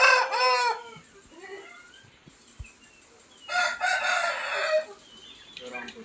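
Roosters crowing: one crow trails off about a second in, and another lasting over a second begins at about three and a half seconds.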